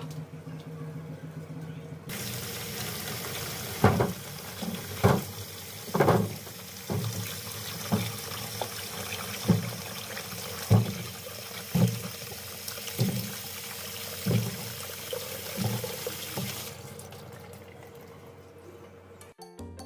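Kitchen tap running into a plastic tub of peeled cassava pieces in a sink, turned on about two seconds in and off near the end. Over the running water come a dozen or so dull thuds, about one a second.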